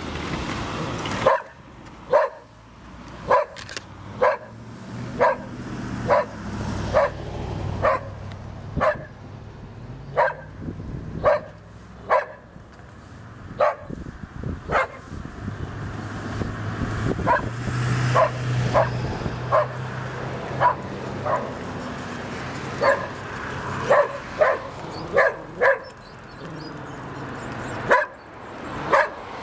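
A dog barking over and over, about once a second, with short pauses between runs of barks. Road traffic rumbles underneath, swelling once about two-thirds of the way through as a vehicle goes by.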